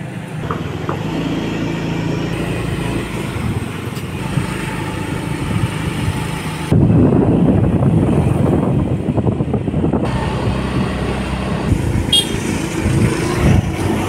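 Motorcycle engine running in street traffic. About seven seconds in the sound turns suddenly louder and rougher as the bike rides off.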